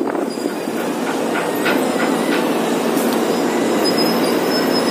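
Strong wind buffeting an unshielded phone microphone, a steady rushing rumble with no windscreen to soften it.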